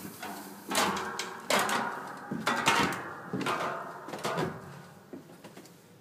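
Irregular knocks and thumps, about five in a few seconds, with scuffing in between: someone climbing a wooden ladder into an attic, steps and hands striking the rungs and framing.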